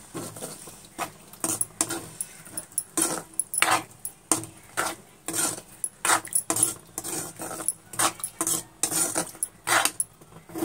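Steel spoon clinking and scraping against a kadai as a drumstick masala curry is stirred, about two strokes a second, mixing in freshly added water.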